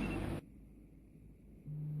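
The tail of an iPhone 14 ringtone, cut off abruptly less than half a second in, followed by about a second of near silence. Near the end a low steady hum sets in as the next ringtone begins.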